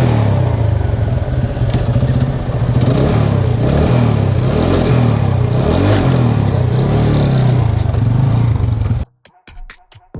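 TVS Apache single-cylinder motorcycle engine running steadily under way, its pitch wavering a little with the throttle. It cuts off abruptly near the end.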